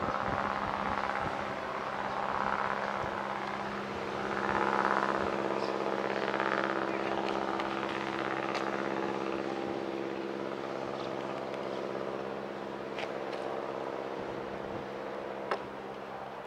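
Steady, unchanging drone of an engine running at a constant pitch, with washes of noise swelling and fading every two seconds or so in the first half. A single sharp click comes near the end.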